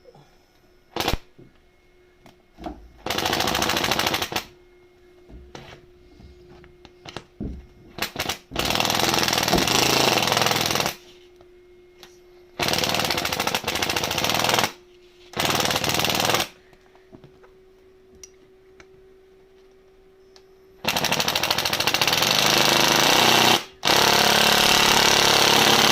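Impact drill driver with a Torx bit hammering replacement aluminium knobs into a recovery board, in six bursts of one to three seconds. Between the bursts come small clicks and knocks as the tool and parts are handled.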